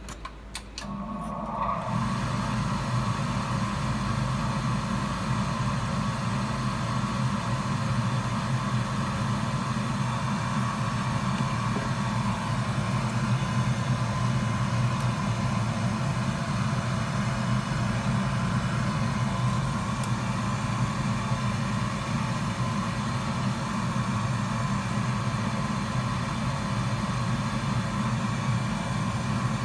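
A machine's steady whirring hum switches on about one to two seconds in and then runs evenly.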